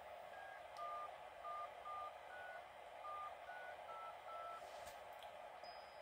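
A faint string of about nine short touch-tone (DTMF) beeps, roughly two a second, each with its own pitch. They key in a function code to a repeater controller, telling it to change a radio's frequency.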